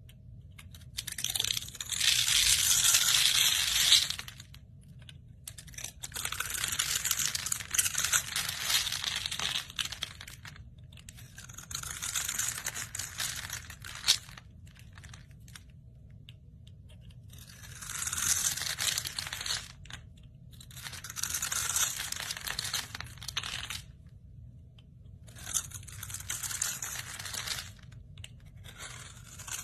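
Repeated bursts of crinkling, tearing-like noise, about seven of them, each two to four seconds long with short pauses between. The first burst is the loudest, and a single sharp click comes about halfway through.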